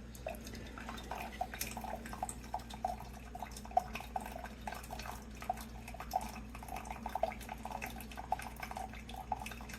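Instant Solo single-serve coffee maker brewing: hot water dripping and trickling into a cup in irregular drops, over a faint steady hum.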